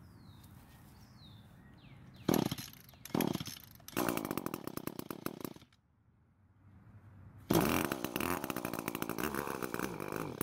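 Small two-stroke engine of an Echo stick edger, with its muffler missing the spark arrestor plate, being pull-started. Two quick cord pulls, then it fires and runs for about two seconds before dying suddenly. A few seconds later it starts again and keeps running. It starts but won't stay running, which the owner takes for the carburettor needing more fuel.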